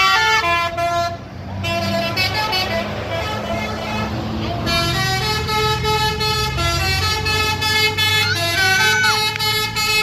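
Bus telolet horn playing a basuri tune: a melody of held notes stepping from pitch to pitch, over the bus's engine running underneath.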